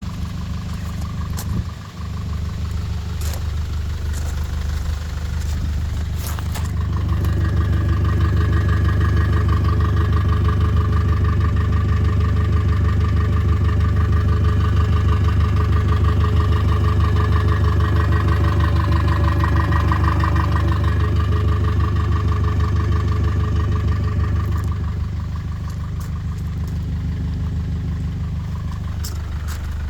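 Mercedes Vito van's engine idling steadily, then held at higher revs for most of the middle stretch before settling back to idle near the end.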